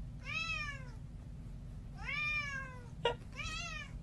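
Long-haired tabby cat meowing three times, each call rising and then falling in pitch, the third shorter and fainter. A short sharp knock comes between the second and third meows.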